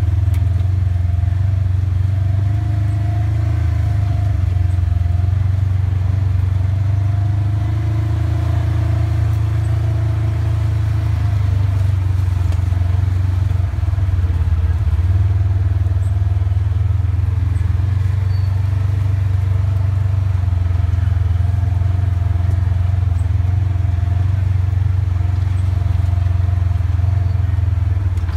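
Side-by-side UTV's engine running steadily while driving a dirt trail, heard from inside the open cab as a loud, even low drone with a faint steady whine above it.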